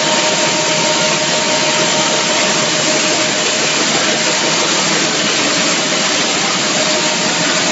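Pet food production line machinery running: a steady, even noise with a thin constant whine through it.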